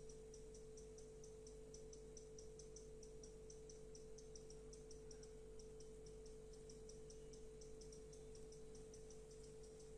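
Near silence: faint room tone with a steady hum and a faint, fast, high-pitched ticking, about four ticks a second.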